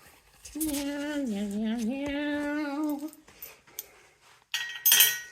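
A person humming a short wavering tune for about two and a half seconds. Near the end come a few sharp metallic clinks of hardware, such as bolts, against steel.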